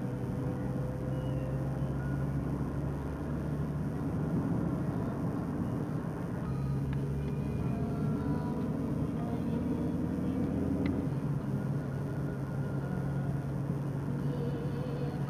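Car engine and road noise heard from inside a moving car: a steady low drone under an even rush of tyres.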